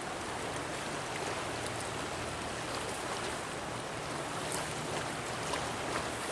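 Creek water running steadily, an even rushing sound.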